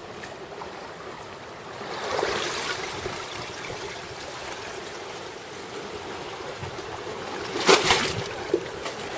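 Water washing and trickling, swelling about two seconds in, with a brief loud splash-like noise near the end.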